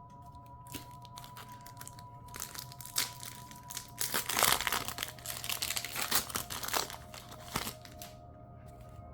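Foil wrapper of a Pokémon mini booster pack crinkling as it is handled and opened, the crinkling densest in the middle and dying away near the end.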